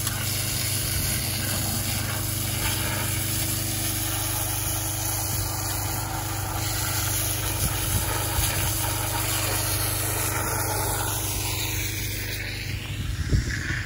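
Pressure washer blasting muck out of a log loader's hydraulic oil cooler fins: a steady engine drone under the hiss of the water jet.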